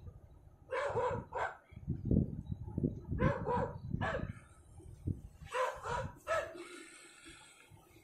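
A dog barking repeatedly, in short groups of two or three barks, with a low rumbling noise between the barks in the middle.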